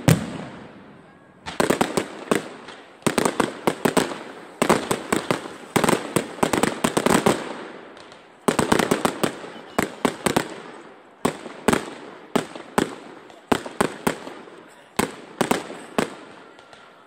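Aerial fireworks going off: quick clusters of sharp bangs and crackles, one cluster every second or two, each dying away after it.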